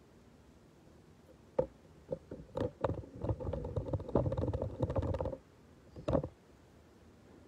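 Handling noise from the recording camera being adjusted: a few sharp knocks and clicks, then a couple of seconds of close rubbing and clattering, and one last knock.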